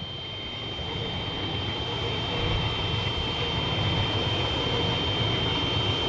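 Electric suburban train passing on the track, its rumble building steadily louder, with a steady high-pitched tone over it.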